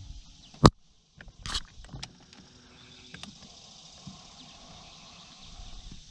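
A single sharp knock, then a brief rush of noise, over a steady high buzz of insects.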